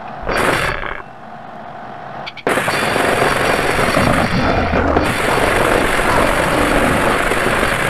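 Goregrind/gorenoise recording: a short harsh burst, a quieter stretch, then about two and a half seconds in a dense, loud wall of distorted noise that runs on.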